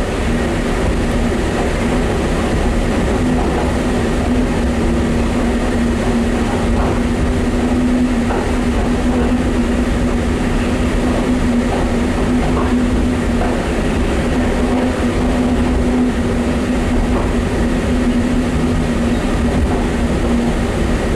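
Terminal Link cable-hauled people-mover car running along its elevated guideway, heard from inside the car. It makes a steady hum with one constant low tone over even rolling noise, with a few faint clicks.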